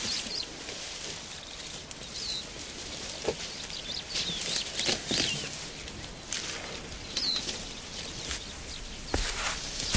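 Elephants pulling up and tearing grass with their trunks: rustling and crackling stalks, with a dull thud near the end. Short bird chirps come every second or two over it.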